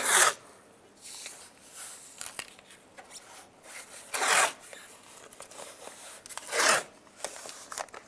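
Blue painter's tape pulled off its roll in three short pulls: one at the start, one about four seconds in and one near seven seconds. Faint rubbing in between as the tape is pressed along the truck's door edge.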